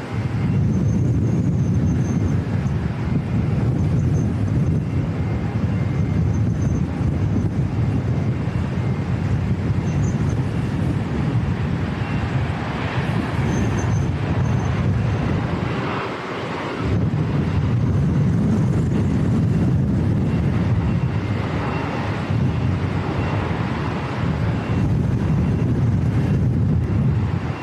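Strong, gusty wind buffeting the microphone as a steady low rumble, with a brief lull about sixteen seconds in.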